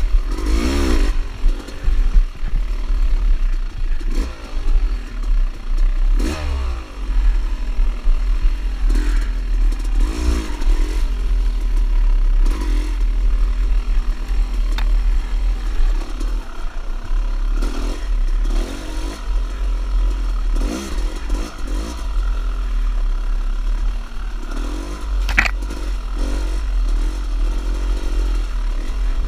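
Dirt bike engine revving up and down again and again while it is ridden over a rough dirt trail, with the clatter of the bike over the ground. There is a sharp knock near the end.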